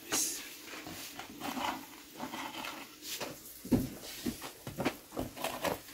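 Wooden bread peel knocking and scraping at the mouth of a wood-fired clay oven as flat dough is slid in: scattered short knocks, the loudest a dull thump about two-thirds through, followed by a few lighter ones.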